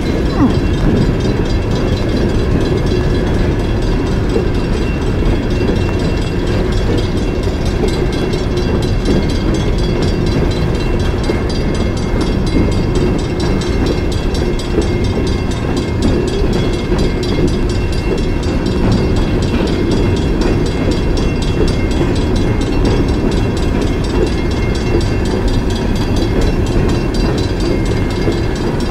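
Coal train's hopper cars rolling past close by: a loud, steady rumble of steel wheels on rail.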